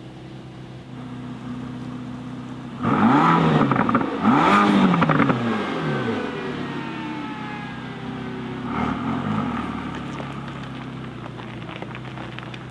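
Mercedes-AMG GT Black Series's twin-turbo 4.0-litre V8 idling, then revved hard twice in quick succession about three seconds in. The revs sink away slowly, there is a smaller rev rise near nine seconds, and then it settles back to idle.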